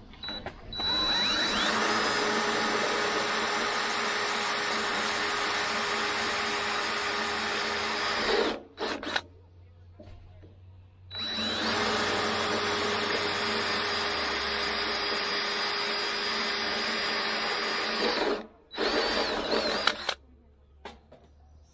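Cordless drill boring through the smoker's sheet-steel wall: two long runs of several seconds each, each starting with a rising whine as the motor spins up, followed near the end by a few short bursts.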